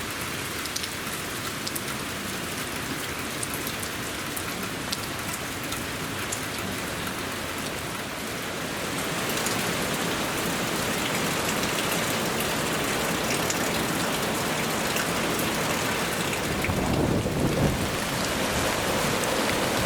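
Heavy typhoon rain pouring down, with close drops ticking at first. The rain grows louder about nine seconds in. A low rumble comes through near the end.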